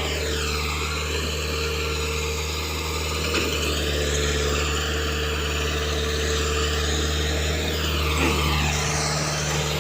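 Excavator's diesel engine running steadily under load, with a higher whine that falls and rises in pitch as the machine works.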